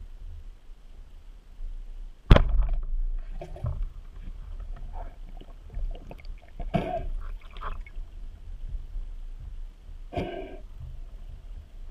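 Speargun fired underwater: one sharp crack about two seconds in as the shaft is released, followed by several softer knocks and gurgling water sounds.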